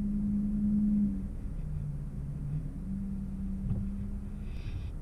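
Car engine and tyre noise heard from inside the cabin: a steady low drone with a hum that drops in pitch for about a second before coming back.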